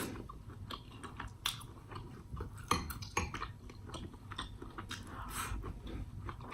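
Close-miked chewing and biting: wet mouth clicks and smacks at an irregular pace.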